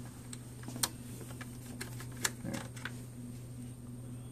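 Small sharp clicks and taps of a fluorescence filter cube and its parts being handled in the filter slot of a Nikon TS100F inverted microscope, two louder clicks about a second and two seconds in. A steady low hum runs underneath.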